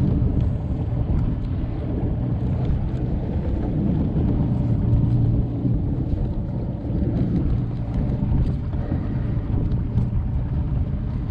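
Steady low rumble of a Ranger bass boat's outboard running on the water, with wind buffeting the microphone.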